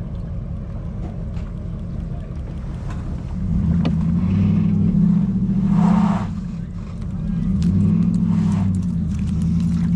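A boat motor running with a low drone that grows louder and shifts in pitch from about three and a half seconds in, dipping briefly near seven seconds before returning.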